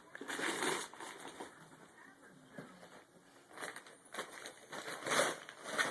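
Rustling and crinkling of a present's paper or plastic packaging being handled, in several short bursts.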